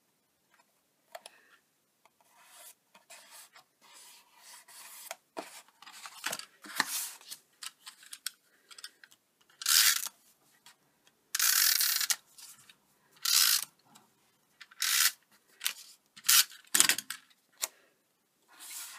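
Short rasping strokes of a Snail tape runner laying adhesive on the back of card panels, with paper rubbing and rustling as panels are handled and pressed down. The strokes come more often and louder in the second half.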